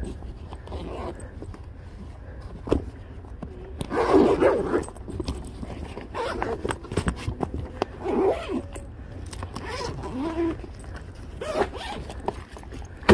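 Zippers on a soft-sided fabric suitcase being pulled open in several separate zips, with knocks and clicks as the bag is handled.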